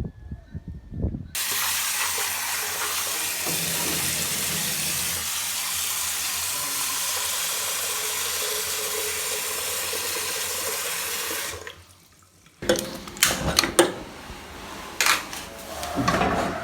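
Water running steadily for about ten seconds, then stopping abruptly. It is followed by a few sharp knocks and clatters.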